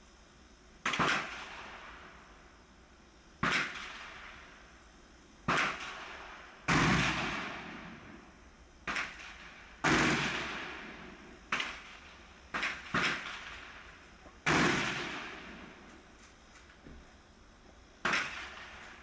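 Gunshots at a shooting range: about eleven sharp shots at uneven intervals, each trailing off in a long echo.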